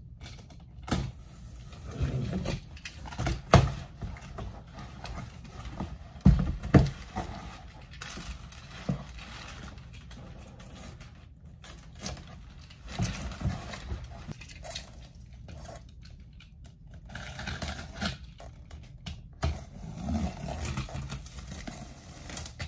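A large cardboard box being shifted and handled: irregular thumps, knocks and cardboard scraping. Near the end a box cutter slits the packing tape on its seam.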